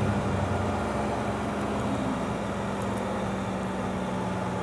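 Vehicle engine running at a steady speed, a constant low hum with road noise, heard from on board.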